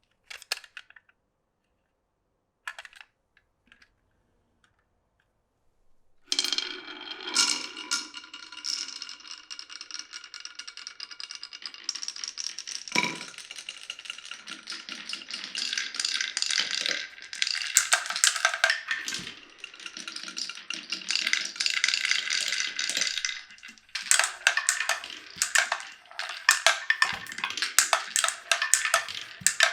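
Glass marbles rolling and clattering down a wooden marble run, with ringing tones as they roll. A few single clicks come first; about six seconds in, a steady run of marbles begins, with bursts of sharp clacks as they knock together and drop through the track.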